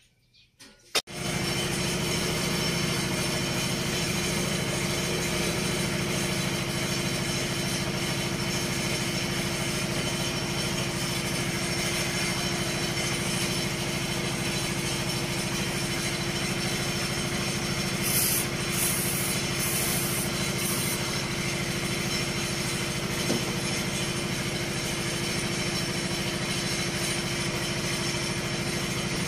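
Foton dump truck's diesel engine idling steadily; the sound cuts in abruptly about a second in.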